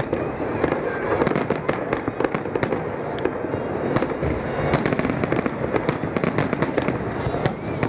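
Aerial fireworks display: firework shells bursting overhead in a dense, continuous string of sharp bangs and crackles, several a second.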